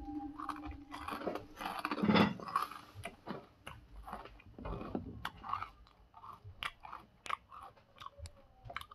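A person chewing a mouthful of dry Sour Patch Kids cereal, with many small, irregular crunches that thin out over the last few seconds.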